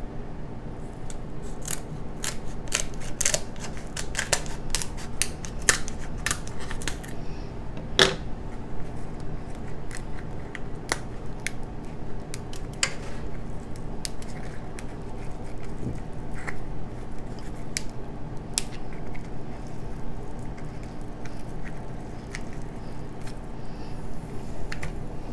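King crab leg shell being cut with kitchen shears and cracked apart by hand: a quick run of sharp cracks and snips in the first several seconds, one loud crack about eight seconds in, then scattered snaps as the shell is pulled open. A steady low hum lies underneath.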